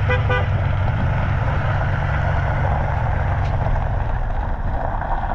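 Steady engine and road noise heard from inside a moving vehicle: a constant low rumble with an even hiss of tyres and wind over it. A few faint short tones sound in the first half-second.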